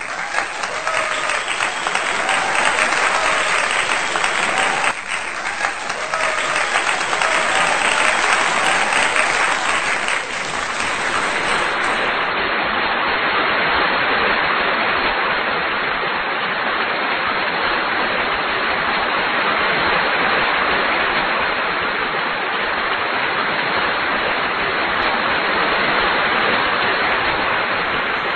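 Steady rushing air noise from a blower on a BGA rework station, starting abruptly.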